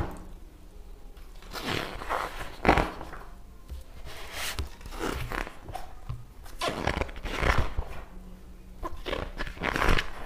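Glossy pages of a large book being turned and handled: a series of short paper swishes and rustles at irregular intervals.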